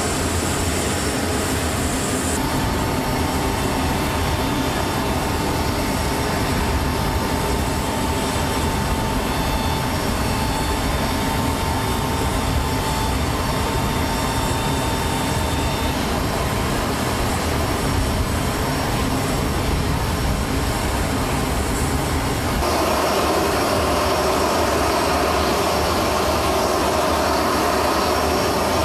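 Jet aircraft turbine noise from a C-17 Globemaster III: a steady loud rush, with a thin high whine over it for a while in the middle. The sound changes character at a few points, as between shots.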